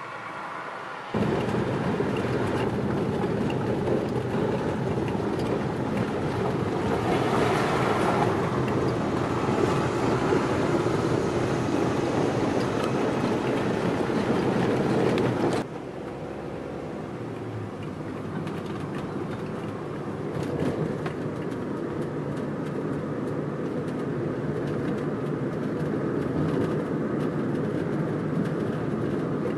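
Road and engine noise heard from inside a moving Mitsubishi car. It comes in suddenly about a second in, runs loud, then drops sharply about halfway through and carries on more quietly.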